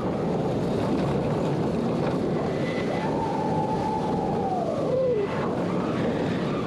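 Wicked Twister impulse roller coaster ride: a steady rush of wind and track noise. About halfway in, a single high tone holds for about two seconds, then slides down and fades.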